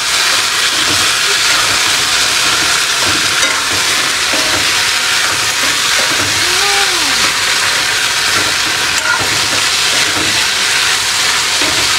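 Black chickpeas and potato pieces sizzling steadily as they fry in a metal kadai, stirred with a metal spatula; a sar-sar frying sound.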